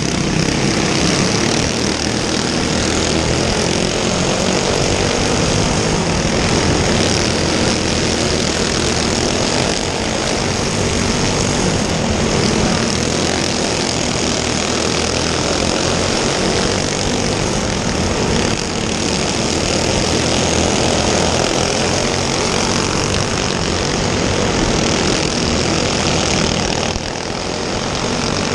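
Racing go-kart engine running hard at high revs: a loud, steady drone with little change in pitch and a slight dip near the end.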